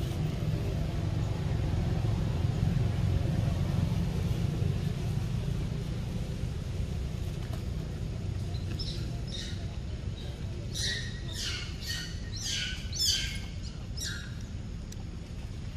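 A bird calling in a run of about ten quick, high, falling chirps from about nine seconds in, the loudest about thirteen seconds in, over a low steady background rumble.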